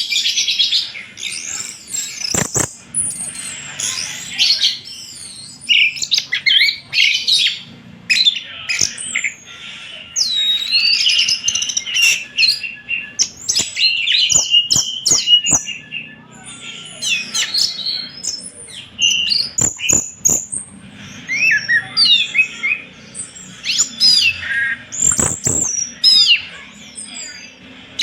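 Orange-headed thrush (anis merah) singing a fast, varied song of whistles and sweeping notes that keeps changing phrase, with sharp clicks here and there between the phrases.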